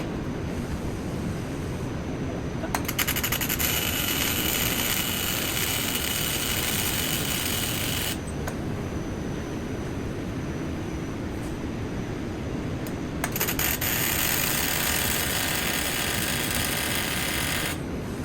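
TIG welding arc on stainless steel, struck twice: each weld opens with a quick run of crackling ticks, then a steady high hiss for about five seconds that cuts off suddenly. A constant low rumble runs underneath.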